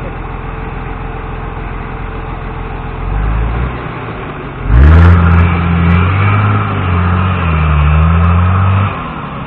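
Lifted off-road Jeep's engine running low, then revved hard about five seconds in and held at high revs for about four seconds, its pitch wavering as it drives through deep mud, before dropping back near the end.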